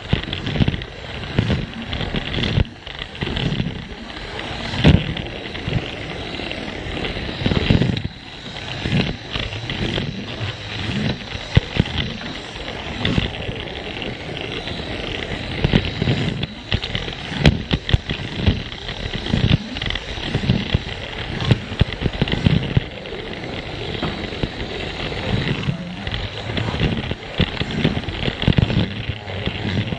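Plarail toy train's small electric motor running, its wheels rolling on plastic track, with irregular clicks and knocks.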